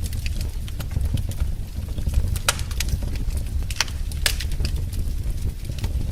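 Wood fire in a fireplace crackling: a steady low rumble of the flames with irregular sharp pops and snaps, a few louder ones around the middle.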